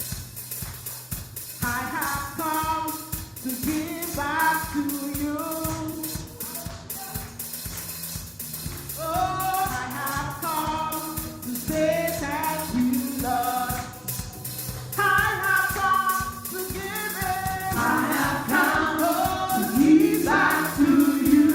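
Gospel worship music: voices singing together over a drum kit and bass, with the drums keeping a steady beat. The singing comes in about a second and a half in.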